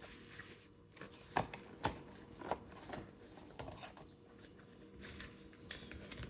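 Close-up chewing of crunchy salad (lettuce and fried onions) with the mouth closed: a run of crisp crunches about one to four seconds in. Near the end, a sharp click of the fork against the plastic salad bowl.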